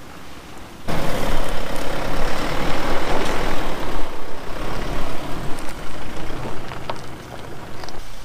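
Toyota Fortuner's 2.8-litre four-cylinder turbo-diesel engine running under load as the SUV climbs a dirt rise close to the microphone, with a loud rushing noise over it. The sound comes in suddenly about a second in and eases off near the end.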